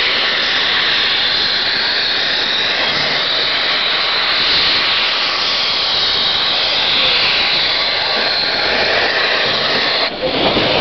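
Durango & Silverton narrow-gauge steam train running, heard from an open passenger-car window: a steady, even rushing noise with no clear rhythm, dipping briefly near the end.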